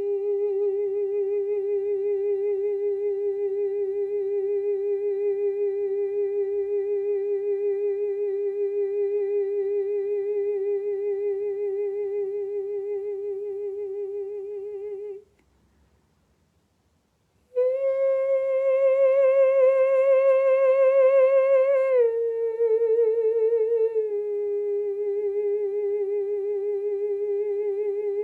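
A woman's voice humming long wordless notes with a slow vibrato, as sound-healing toning. One note is held for about fifteen seconds, then after a short pause a higher note steps down twice and settles back on the first pitch.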